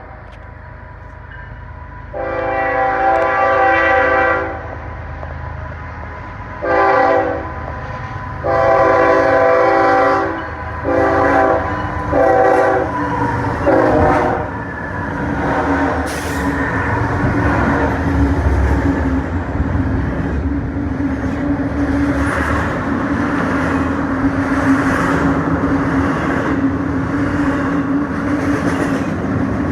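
Union Pacific intermodal freight train passing through a station at speed. The lead GE ES44AC locomotive's air horn sounds a chord in a series of long and short blasts over the first fourteen seconds or so. After that comes the steady rumble and rolling noise of the passing locomotives and cars.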